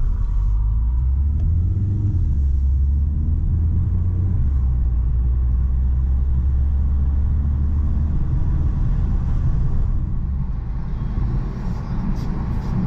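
Car driving along a road: a steady low rumble of engine and tyre noise, heard from inside the cabin.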